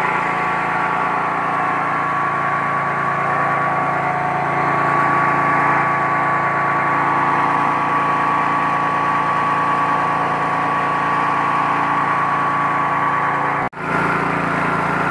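KD 580 WG Pro mini rice milling machine running steadily under load while it mills rice, a constant mechanical drone with a steady hum, as milled rice streams out of its chute. The sound drops out for an instant near the end.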